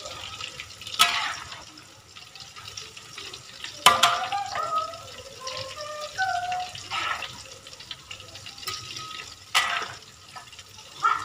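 Cassava getuk balls deep-frying in hot oil in a steel wok, a steady sizzle, being half-fried for freezing. A metal ladle and tongs knock sharply against the wok a few times as pieces are scooped out and turned.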